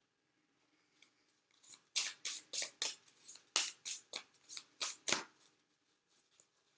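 A deck of oracle cards shuffled in the hands: a run of quick, crisp card slaps, about three a second, starting about two seconds in and stopping about five seconds in.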